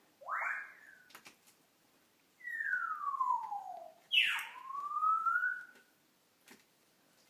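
Pet parrot whistling cartoon-style sound effects it has learned to mimic: a short rising whoop, then a long falling whistle, then a quick drop into a slow rising whistle, with a few soft clicks between.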